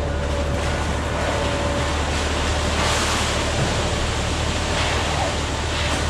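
Concrete mixer truck running: a steady low engine drone under a rushing noise.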